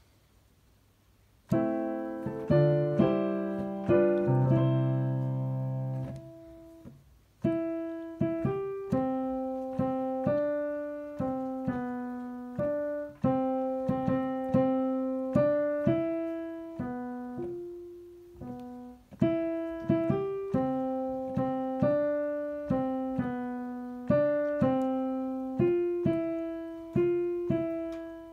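Piano playing the alto part of a choral song as a rehearsal track. After a moment of quiet it plays a few seconds of full chords as an introduction. Then from about seven seconds in it plays the single melody line one note at a time.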